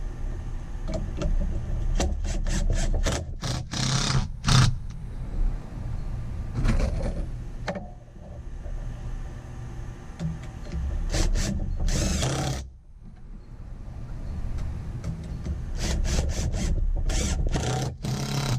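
Cordless impact driver driving inch-and-a-quarter screws into the wooden sides of a boat-seat pedestal, in several runs of fast rattling hammering, one screw after another.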